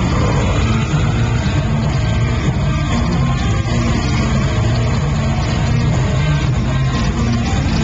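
Death metal band playing live at high volume: fast electric guitar and drums in a dense, unbroken wall of sound, picked up from the crowd by a small camcorder microphone.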